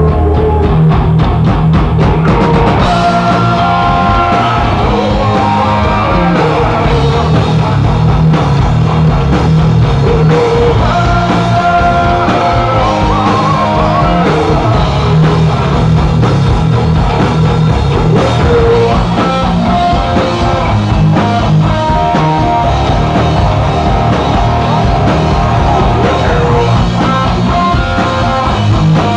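Live rock band playing loud: distorted electric guitars over a drum kit, with a singer's voice on top.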